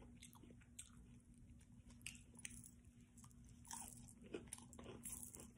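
Faint chewing of a crunchy Doritos Locos taco shell, with scattered small crunches, over a faint steady hum.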